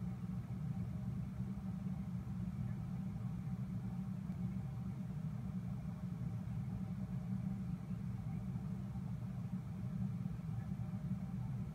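Steady low hum of a reef aquarium's running pumps and equipment, with a faint hiss above it.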